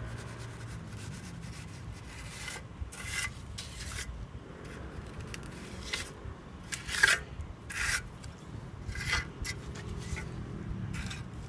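Hand trowel pressed hard against wet pebble-wash plaster on a wall, making a series of irregular gritty scraping strokes, the loudest about seven seconds in.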